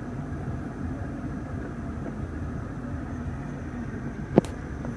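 Steady low rumble of the BMW 650i's twin-turbo V8 idling, heard from inside the cabin, with one sharp click about four and a half seconds in.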